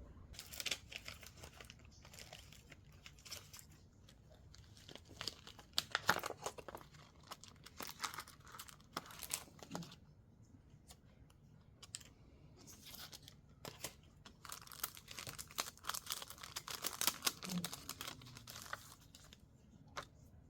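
Paper being handled in bursts: rustling and crinkling sheets, several times over, with short quiet gaps between.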